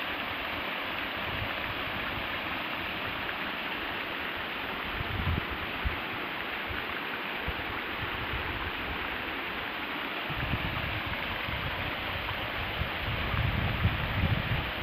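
Steady rushing of flowing water, with low rumbles about five seconds in and again through the last few seconds.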